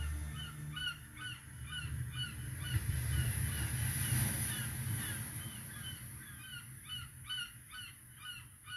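A bird's short, falling calls, repeated about two a second, over a low rumble.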